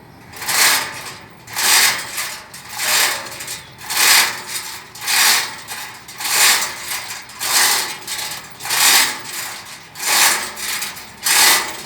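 Rhythmic rasping strokes of a hand tool working a hard surface, about one stroke a second, each a short harsh scrape.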